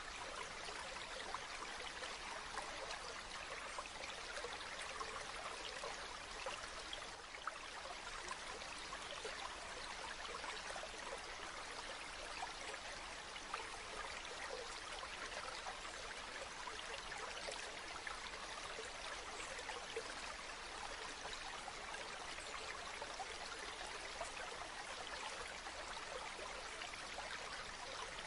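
Running water of a stream: a steady, unbroken rush with fine splashing and gurgling throughout.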